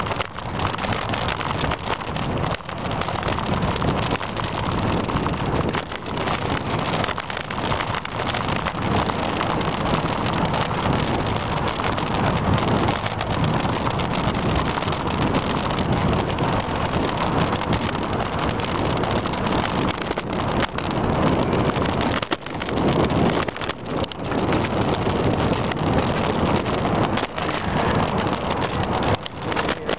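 Wind rushing over the microphone of a camera on a moving bicycle, with the hiss of tyres on wet pavement; the noise is steady with frequent brief dips.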